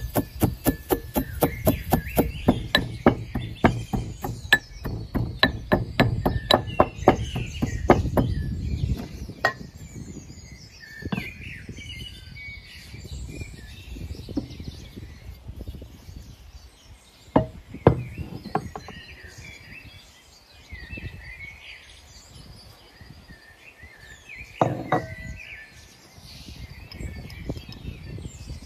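Metal pestle pounding wheat grains in a metal mortar, about three strikes a second, stopping about nine seconds in. Birds chirp throughout, and a few single knocks follow later.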